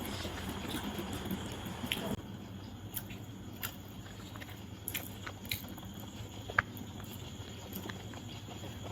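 A person eating biryani: chewing, with scattered small wet clicks. The background hiss drops off abruptly about two seconds in.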